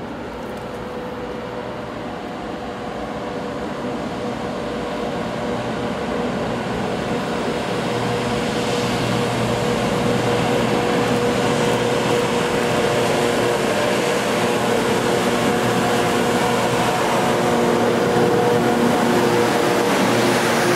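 Class 92 electric locomotive hauling a freight train as it approaches and draws alongside. It gives a steady hum with several held tones over wheel and rail noise, growing steadily louder as it nears.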